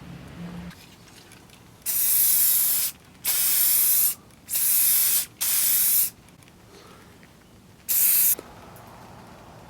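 Five short bursts of pressurised spray hissing, with brief gaps between them; the last comes alone, after a longer pause.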